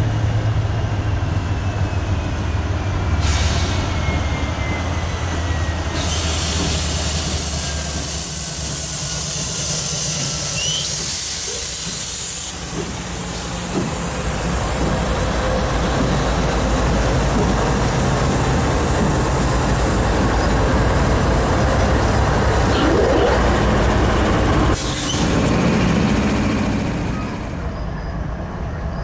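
A CSX intermodal train passing close by, led by GE ES40DC and AC44CW diesel locomotives. Their engines rumble as they approach and go by, then the cars make a long, steady rush of wheel-on-rail noise with a high hiss. It changes suddenly near the end to a quieter, more distant train.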